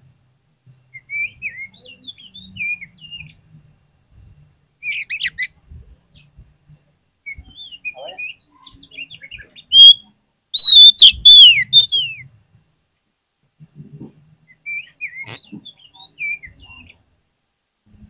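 Oriental magpie-robin singing varied short whistles and chirps. It is loudest about ten seconds in, with a run of sweeping, falling whistles.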